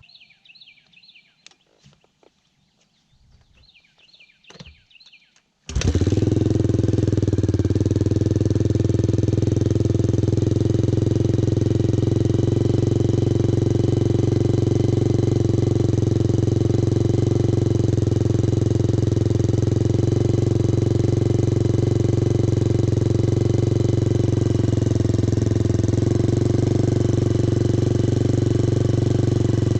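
1996 Suzuki DR350's single-cylinder four-stroke engine through a SuperTrapp exhaust, starting suddenly about six seconds in after a few faint clicks, then running steadily on choke without revving.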